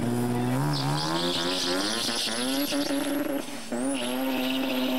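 A drag-racing street car launching from the start line, its engine revving hard and climbing in pitch, with a brief drop for a gear change about three and a half seconds in before it pulls again.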